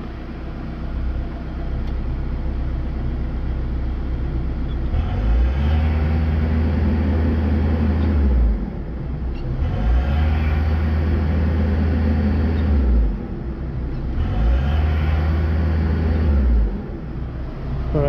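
Case 580ST backhoe loader's diesel engine heard from inside the cab, idling and then revved up three times, each rev held for two to three seconds before falling back to idle. It revs freely with no warning beeps, now that its DPF problem has been solved.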